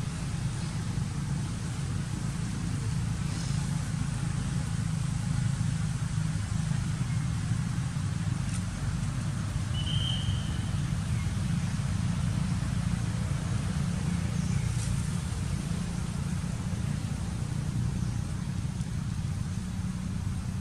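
A low, steady engine hum with no change in pitch, with one short high chirp about ten seconds in.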